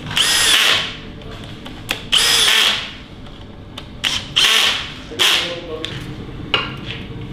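Cordless drill-driver running bolts into an engine oil pan in four short bursts, each a whine that rises as the motor spins up and then cuts off. A single click follows near the end.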